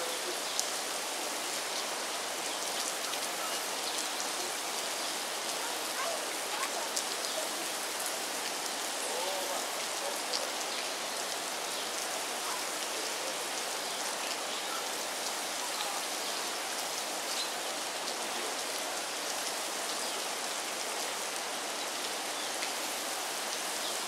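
Steady rain falling, an even hiss sprinkled with small drop ticks.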